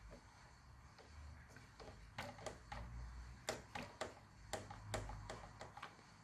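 Radio-controlled Mini Cooper S model running slowly, with a low hum in short spells and a string of irregular sharp knocks, a few a second. It is a knocking noise that foam packing between suspension and bodywork has not cured.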